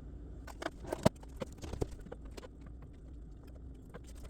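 Meat chopper tool breaking up ground pork, a run of short knocks and clicks in the first couple of seconds, the sharpest a little after one second in, then quieter, over a low steady hum.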